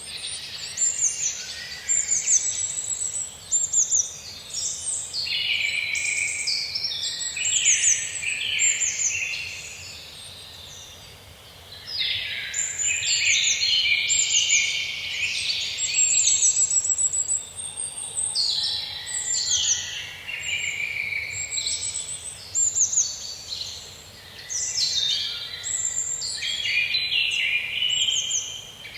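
Several songbirds singing almost without pause, overlapping phrases of high chirps and rapid trills, with a short lull about ten seconds in. A faint steady hiss lies underneath.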